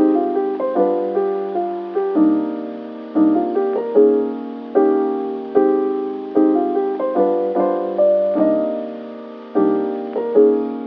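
Soft background piano music, a chord struck about every second and left to fade.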